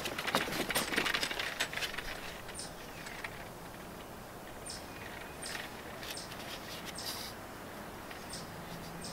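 Rustling and light clicks from the foam-insulated copper refrigerant lines of a pre-charged mini-split line set as they are handled and positioned, busiest in the first two seconds. Short high chirps repeat irregularly throughout.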